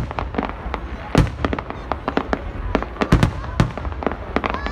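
Aerial fireworks going off in quick, irregular succession: a stream of sharp bangs and crackles, with a few heavier booms standing out, one about a second in and another past the middle.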